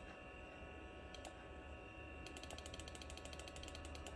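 A computer mouse button clicked once about a second in, then rapidly, about ten clicks a second, through the last two seconds. Beneath the clicks is the steady hum and whine of the running Macintosh IIsi.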